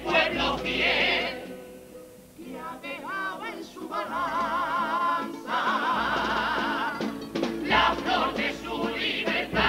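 Male comparsa chorus singing a Cádiz carnival song in harmony with guitar accompaniment. It drops to a softer passage about two seconds in, a single voice with strong vibrato carries the line for a moment, and the full chorus comes back in about halfway through.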